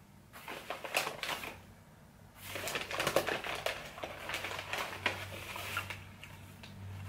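Paper fast-food bag rustling and crinkling as it is opened and rummaged through, in two spells of crackling.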